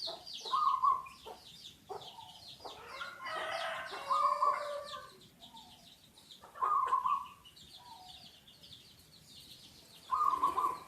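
Zebra dove (perkutut) decoy calling in short repeated cooing phrases, about four times, over rapid high chirping from other small birds.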